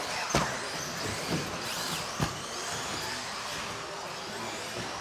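Electric 1/10-scale 2WD RC buggies racing: a steady haze of motor whine and tyre noise, with faint whines rising and falling as cars pass. A few sharp knocks, the loudest a little over two seconds in.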